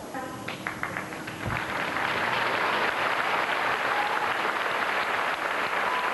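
Audience applauding: a few scattered claps at first, swelling into full, steady applause about a second and a half in.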